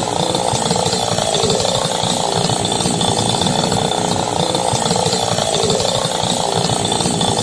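Two-stroke chainsaw running with a fast, steady rattle.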